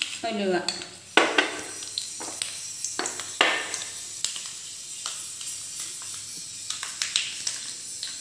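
A metal utensil clinking and scraping against a cooking pan over a steady frying sizzle, with sharp knocks about one, two, three and three and a half seconds in.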